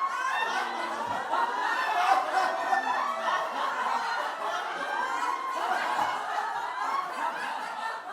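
A group of people laughing together, several voices of chuckles and giggles overlapping.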